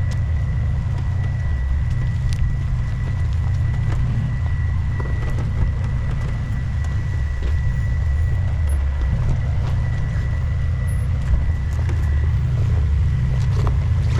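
Vehicle engine running at low, steady revs on the trail, a continuous low rumble, with a faint steady high whine over it.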